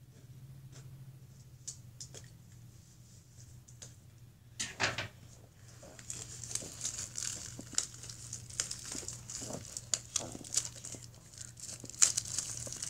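Plastic wrapping on a box of baseball cards crinkling and tearing as it is opened. A few faint clicks come first, then from about five seconds in a dense crackly rustle of wrapper runs on.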